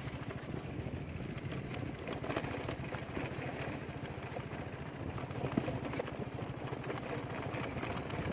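Motorcycle engine running steadily at low road speed, with a constant low pulsing and many small rattles and knocks from riding over a bumpy dirt road.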